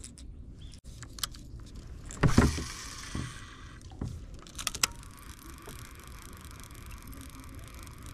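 Knocks and clicks of fishing tackle being handled in a small wooden boat, the loudest a dull thump a little over two seconds in and a quick run of clicks near the middle. A steady faint hiss follows.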